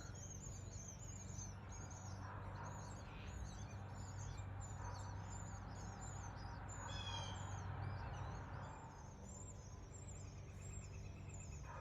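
Nestling birds in a nest calling for food, a steady stream of short, high, repeated chirps, with a brief run of lower notes about seven seconds in. A steady low hum runs underneath.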